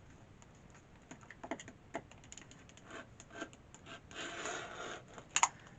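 Scattered clicks and taps of a quilting ruler and rotary cutter being handled on a cutting mat, with a short scraping stroke about four seconds in and a sharper click near the end.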